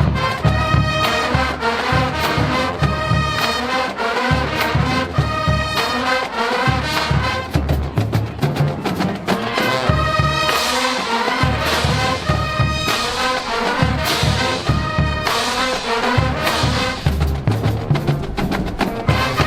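College marching band playing: massed trumpets and trombones over a steady beat of bass drums and drumline.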